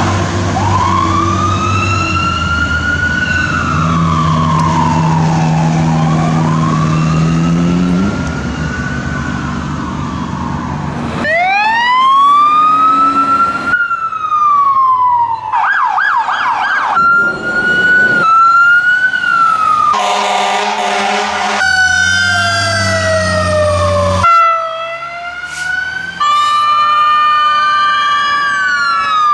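Fire engine's Whelen electronic siren wailing slowly up and down, with a low steady air-horn note held under it for the first several seconds. From about eleven seconds in, a quick run of short clips of other fire engines' electronic sirens follows, wail and fast yelp, each cut off abruptly by the next.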